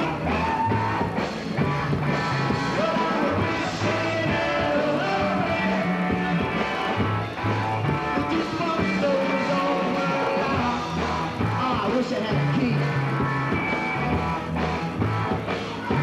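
Live rock band playing: electric guitars, bass guitar and drums.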